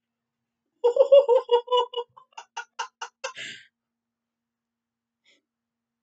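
A person laughing over a voice call: a quick run of high-pitched "ha" pulses that starts about a second in and fades over a few seconds, ending in a breathy exhale.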